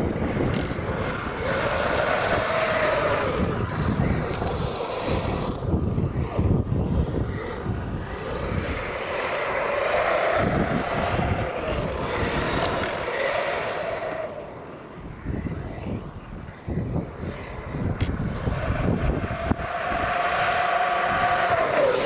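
Arrma Outcast 8S, a 1/5-scale brushless electric RC stunt truck, driving on sand: its motor whine rises, holds and falls with the throttle in several bursts, over a constant rush of tyre and sand noise. It is quieter for a couple of seconds in the middle and closest near the end.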